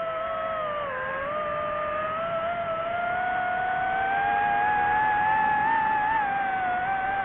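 DJI FPV drone's motors and propellers whining steadily, the pitch rising gradually as the throttle comes up and easing back down near the end.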